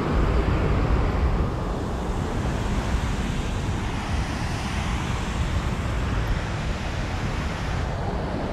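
Wind buffeting the microphone, a steady low rumble over an even rushing noise.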